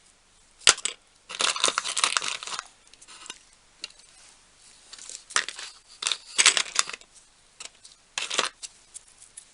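Small tool accessories and their containers being handled: a sharp click about a second in, then bouts of rattling, clinking and rustling with short pauses between them.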